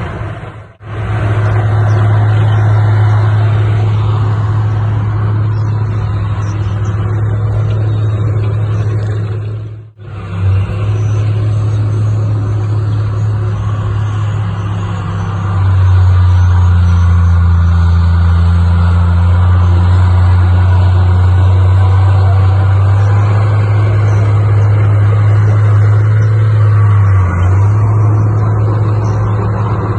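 Heavy machinery diesel engine running steadily with a deep drone. It grows louder and heavier about halfway through, as if under more load. The sound cuts out abruptly twice, just after the start and about a third of the way in.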